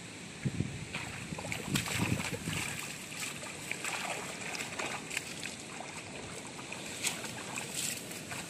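Water splashing and sloshing in irregular bursts, strongest in the first couple of seconds, with a few sharp clicks scattered through.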